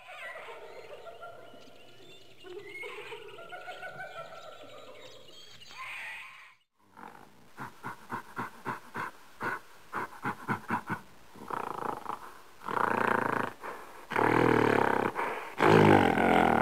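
Animal calls on the soundtrack: wavering, pitched calls for about six seconds, then a brief gap, then short grunt-like sounds about three a second that grow louder toward the end.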